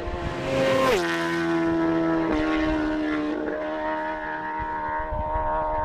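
Motorcycle engine running at steady revs. Its pitch drops sharply about a second in and steps lower twice more.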